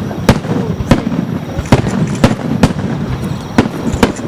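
Fireworks bursting in quick succession: about two sharp bangs a second over a continuous low rumble of booming and echo.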